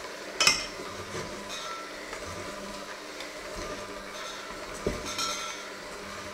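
Electric hand mixer running steadily in a stainless steel bowl, its beaters clanking against the metal, loudest about half a second in and again near five seconds.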